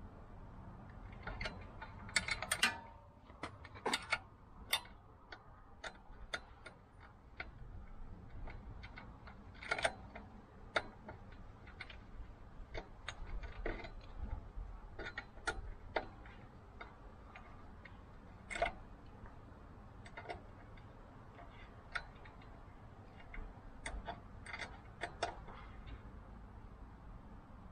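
Irregular metallic clicks and ticks of an Allen key being turned and reseated in the heads of saddlebag bracket bolts as they are tightened. The clicks are scattered and uneven, with a denser, louder run about two to five seconds in.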